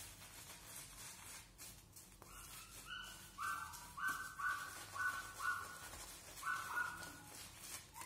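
Simpson Trafalgar T3 shaving brush working shaving cream into a lather on the face, with soft swishing strokes. From a couple of seconds in come short, high squeaky tones, about two a second, in time with the strokes.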